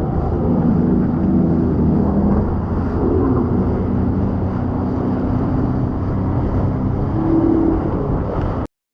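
Jet ski engine running, its pitch wavering a little, over a rushing low rumble. It cuts off abruptly near the end.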